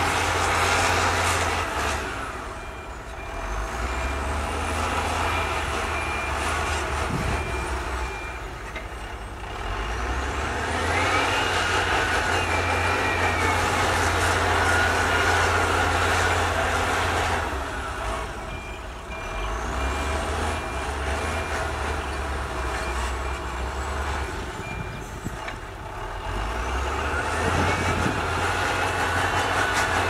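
Diesel engine of heavy road-construction machinery working back and forth, its low hum swelling and easing in turn. A reversing alarm beeps steadily twice, during the spells of backing up.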